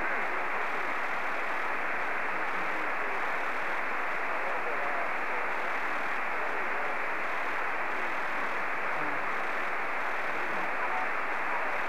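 Single-sideband receiver hiss from a Yaesu FT-897 tuned to the FO-29 satellite's 70 cm downlink (435.800–435.900 MHz), fed by a home-built quadrifilar helix antenna. The hiss is steady and sharply cut off in the treble, with faint, weak signals wavering in pitch beneath the noise.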